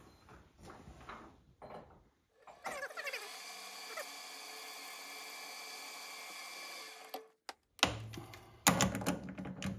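Metal lathe running at a steady pitch while the outside of a brass bearing blank is turned. It starts about three seconds in and stops after about four seconds, followed by a few louder knocks near the end.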